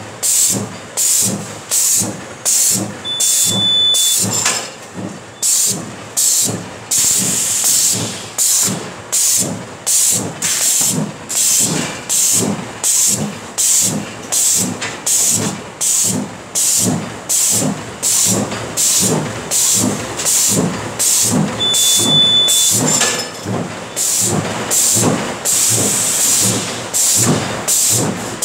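Six-track T-shirt plastic bag making machine running, its cut-and-punch cycle giving a steady rhythm of hissing bursts, about four every three seconds, over a mechanical clatter. A short high beep sounds twice, a few seconds in and about two-thirds of the way through.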